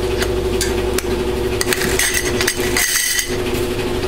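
Small metal tins and lids clinking and clicking as they are picked up, handled and pressed together, a scatter of light metallic clicks with a brighter cluster about three seconds in. A steady hum runs underneath.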